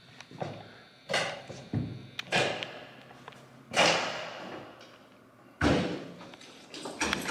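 Four loud bangs on a door, roughly a second and a half apart, each echoing and dying away, with a few lighter knocks in between.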